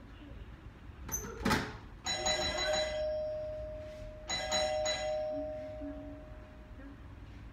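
Doorbell chime rung twice, about two seconds apart, each chime ringing on and fading slowly. A short clatter comes just before the first chime.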